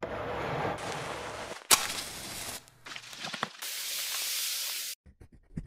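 A cut-up run of noisy sounds: a rushing noise, a sharp knock, a few clicks, then a hiss lasting about a second and a half that cuts off suddenly.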